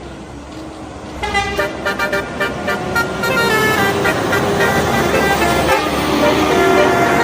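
Bus telolet horn, a multi-trumpet musical air horn, playing a melody over a running bus engine: a quick run of short stepping notes starts about a second in, then gives way to longer held chords that grow louder.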